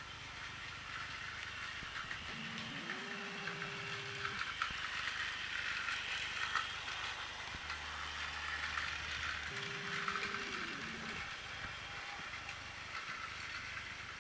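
Battery-powered Plarail toy trains running on plastic track: a steady whir of small motors and gears with wheels clicking over the track joints. A fainter electronic tone glides up to a held pitch about three seconds in, and a similar held tone glides back down near ten seconds.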